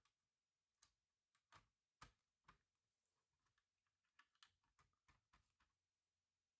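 Faint, irregular clicks and light taps of small hard parts and tools being handled during laptop work, about a dozen in all, with a quick cluster in the second half that stops shortly before the end.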